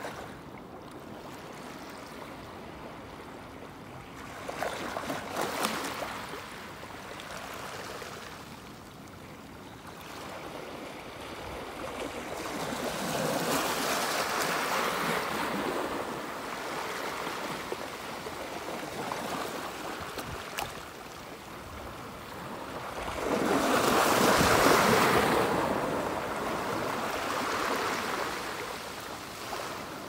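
Small sea waves washing up over concrete seawall steps and draining back, in three surges about five, fourteen and twenty-four seconds in, the last the loudest.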